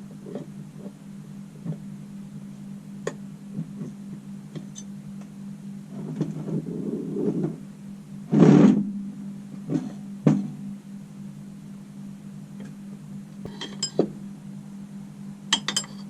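Engine parts and tools being handled on a workbench: scattered light clicks and clinks, a brief scraping rustle about six seconds in and one louder scrape or knock about eight and a half seconds in, over a steady low hum.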